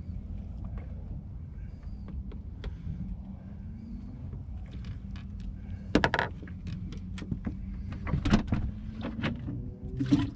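Small boat's engine idling with a steady low hum, under scattered knocks and clatter that are loudest about six and eight seconds in.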